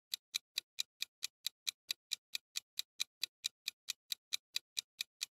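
Countdown timer sound effect: evenly spaced clock ticks, about four a second, marking the seconds left to answer a quiz question.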